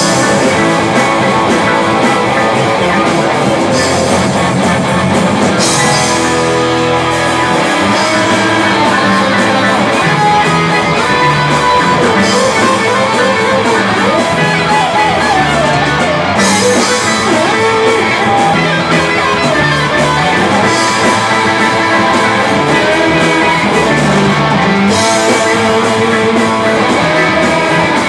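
Rock band playing live: electric guitars, bass guitar and drums in a loud, continuous full-band passage.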